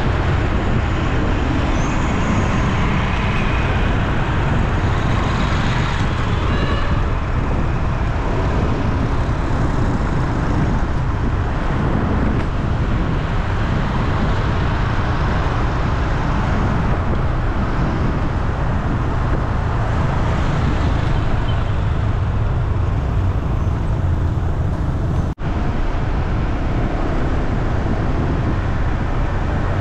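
Steady road traffic noise, a continuous low rumble of vehicles, which cuts out briefly about 25 seconds in.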